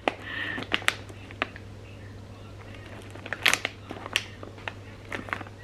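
Clear plastic biscuit bag crinkling in the hands, in scattered sharp crackles as it is turned and held up.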